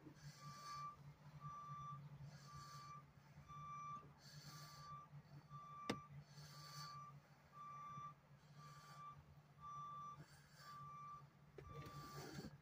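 Hi-rail pickup truck's backup alarm beeping in a steady repeating pattern over the truck's low idling engine, with one sharp click about six seconds in.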